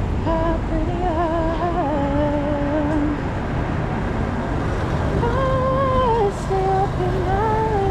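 A woman singing a slow melody with long, wavering held notes, over a steady low rumble of city traffic.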